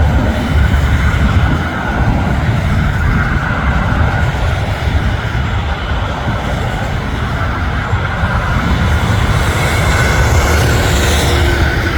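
Airbus A380's four Rolls-Royce Trent 970 turbofans running at approach power: a loud, steady jet rumble with a steady whine above it, and a rising hiss about nine seconds in.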